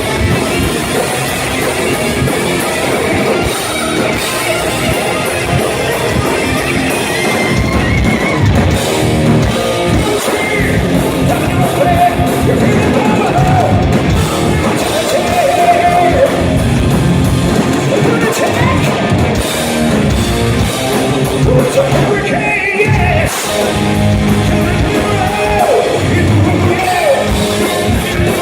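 Hard rock band playing live in a large hall: distorted electric guitars, bass and drums under a male lead vocal singing.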